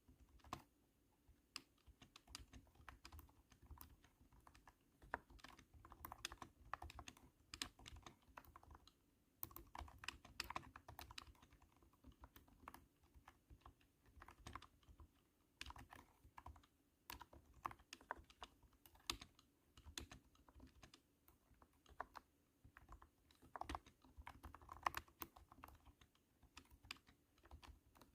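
Quiet typing on a cat-shaped keyboard with super thunky keystrokes. The clicks come in quick runs broken by short pauses.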